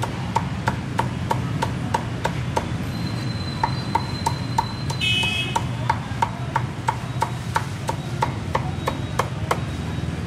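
Cleaver chopping steadily on a wooden block, about three sharp strokes a second, each with a short ring from the blade: crispy roast pork being cut up.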